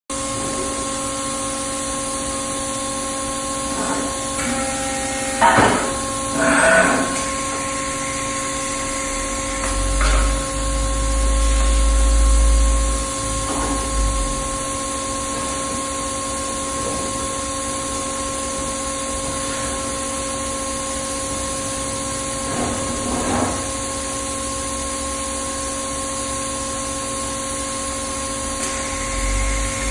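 Peddinghaus ABCM1250 structural-steel beam coping machine running with a steady hum, broken by several metallic clanks and a low rumble lasting a few seconds about ten seconds in, as a steel beam moves along its roller conveyor.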